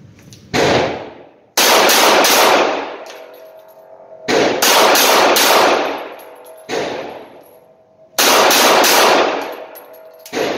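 Smith & Wesson CS45 .45 ACP compact pistol firing on an indoor range, in quick strings of several shots with single shots between them. Each shot is loud and rings out in the range's echo. The shots are a function test of an 8-round magazine loaded 8+1.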